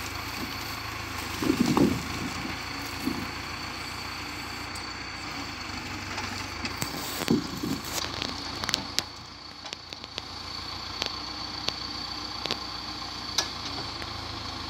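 Tractor engine running steadily while its hydraulic timber crane loads pine logs onto a forestry trailer, the engine note swelling briefly twice. In the second half, a series of sharp wooden knocks and clatters as logs drop and settle on the load.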